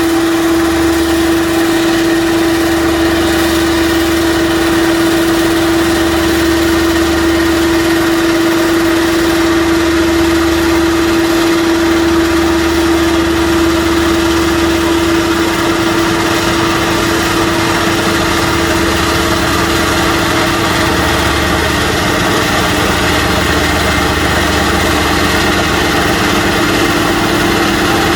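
An engine running steadily with a constant hum and a low rumble that swells and fades every few seconds.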